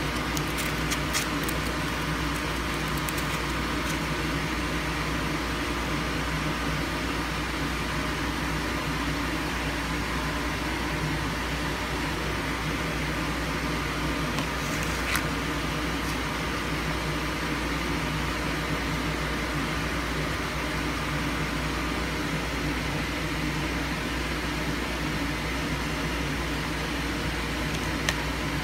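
Steady machine hum and hiss that does not change, with a few light clicks.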